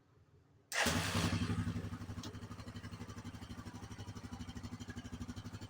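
Yamaha Grizzly 660 ATV's single-cylinder four-stroke engine running, cutting in suddenly about a second in, louder at first and then settling to an even, pulsing idle.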